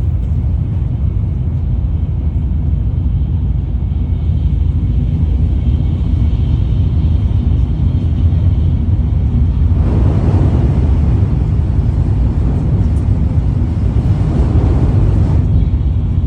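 Tokaido Shinkansen train running with a steady low rumble. A rush of added noise joins it for about five seconds from about ten seconds in.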